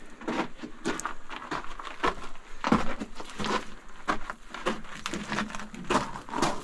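Footsteps crunching on the loose gravel and rock floor of a mine tunnel, irregular steps about two a second.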